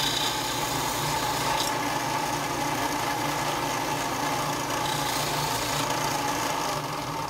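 Bench disc sander running steadily while a diecast metal model part is pressed against the spinning disc, grinding it down thinner.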